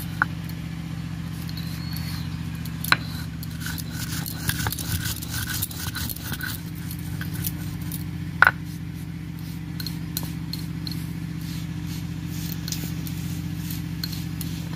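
Whole garam masala spices being ground to a powder: a steady grinding noise with scattered clicks and two sharp knocks, about three and eight and a half seconds in.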